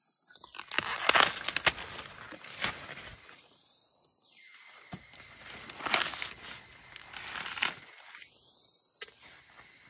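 An ear of sweet corn broken off its stalk and its green husk torn back by hand in a series of crackling rips, the loudest about a second in and more around six and seven seconds in.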